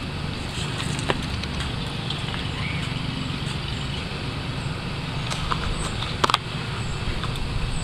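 Steady low outdoor rumble, with a few faint clicks about a second in and twice in the second half.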